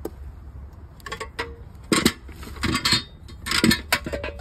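Electrician's tools and disconnect parts being handled on a plywood board: a run of clinks and knocks, loudest at about two seconds in and again near the end, over a low steady background rumble.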